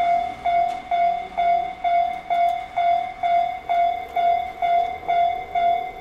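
Japanese railway level-crossing alarm ringing, a steady clanging tone repeated a little over twice a second, the warning that a train is approaching.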